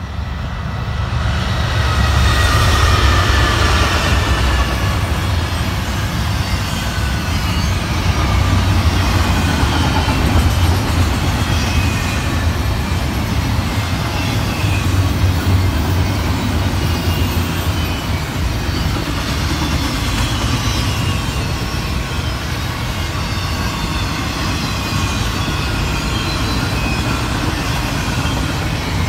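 Two Norfolk Southern GE ES40DC diesel-electric locomotives pass close by, their V12 diesels running under load. A loud low rumble swells about two seconds in, with whines falling in pitch as they go by. Then the double-stack intermodal well cars roll past with a steady rumble and wheel clatter.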